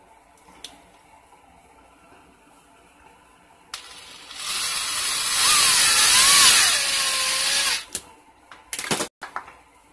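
Power drill driving a self-tapping screw into a PVC tube: about four seconds in, the motor starts with a whine that rises and falls in pitch, then settles lower before stopping. A few short clicks follow near the end.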